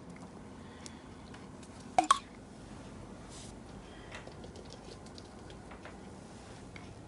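Ferret sneezing, a sharp double burst about two seconds in, with faint light ticks around it. It is a symptom the owner suspects comes from a cold or hay fever.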